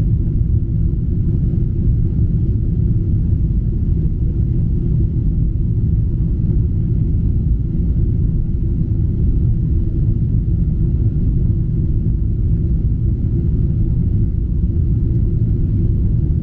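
Jet airliner cabin noise after takeoff: a steady low rumble of engines and airflow, heard from inside the cabin.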